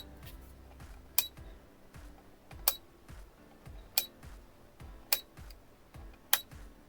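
Rotary function selector of a digital multimeter clicking from position to position, about six sharp clicks a little over a second apart, as the repaired switch is tested. Faint background music underneath.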